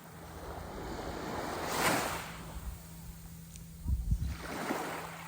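Sea waves washing in, the surf swelling to a peak about two seconds in, with a brief low buffeting about four seconds in.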